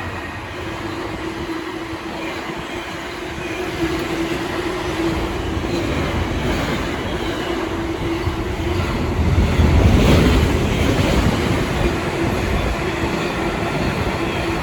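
Class 66 diesel-electric freight locomotive, with its two-stroke V12 engine, passing at speed with its train of wagons: a very loud steady drone with clattering wheels, swelling to its loudest about ten seconds in as the locomotive goes by.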